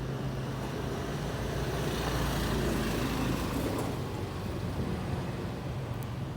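Road traffic rumble, with a vehicle passing that grows louder toward the middle and then fades.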